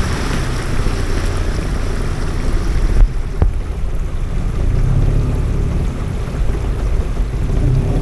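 Low steady rumble of a small boat under way on a river, with wind buffeting the microphone. A short sharp click comes about three seconds in.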